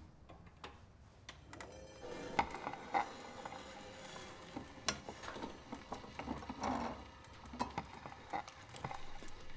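Small clicks and knocks of a wind-up recording gramophone being set up by hand, with the record and tonearm put in place. Under them, a faint steady hum comes in about two seconds in.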